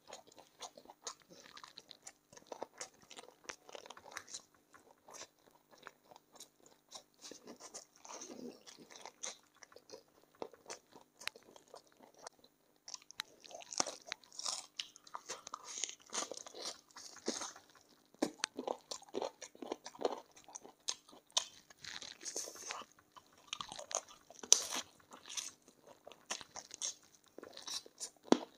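A person biting and chewing chicken feet up close, with frequent irregular crunches and clicks from the skin, cartilage and small bones; the crunching grows louder about halfway through.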